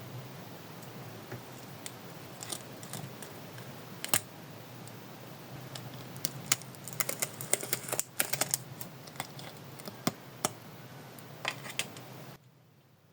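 Small hard objects being handled with irregular light clicks and taps, bunched most densely between about seven and nine seconds in, over a steady low hum that cuts off abruptly near the end.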